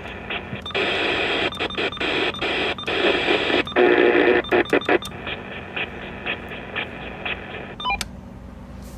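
Radio receiver static on a weak signal: hiss that cuts in and out many times in a choppy pattern, louder from about one to five seconds in, over a steady low hum.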